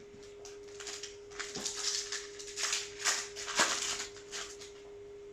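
Crinkling and rustling of a foil trading-card booster pack being handled and torn open, in a run of irregular crackles about a second in that die down near the end.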